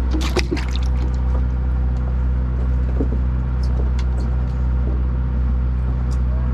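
A boat's engine running with a steady low hum, and a brief splash in the first half second as a fish is dropped into a plastic bin of water.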